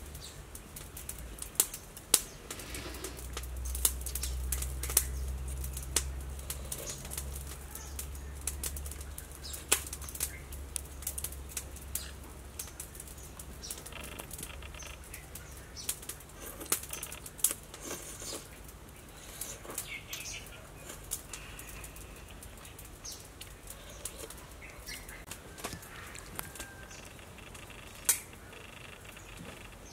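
Metal spoon clinking and scraping against a glazed clay pot as soup is eaten: scattered, irregular sharp clicks, with faint bird chirps in the background.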